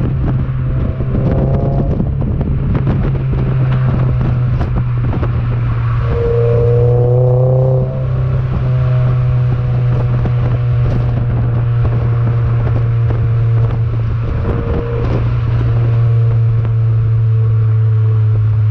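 Toyota GR86's 2.4-litre flat-four engine through a Cobra aftermarket exhaust, cruising at steady part throttle, heard from inside the cabin as a steady low drone. The engine note rises briefly partway through, over a constant haze of tyre and road noise.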